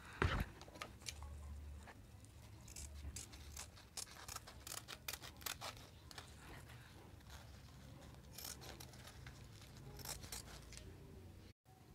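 Scissors cutting through thin fabric: a run of faint, irregular snips and clicks, with a light knock just after the start.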